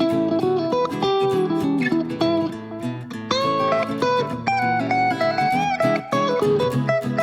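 Background music: guitar-led instrumental with plucked and strummed notes.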